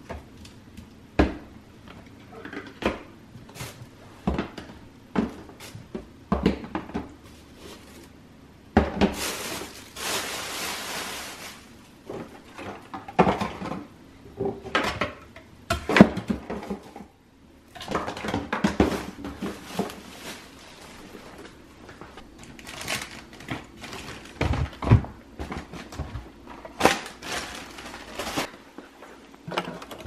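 Plastic bottles, spray cleaners and other supplies knocking and clattering as they are lifted out of and set back into an under-sink cabinet, with about two and a half seconds of steady rustling noise near the first third.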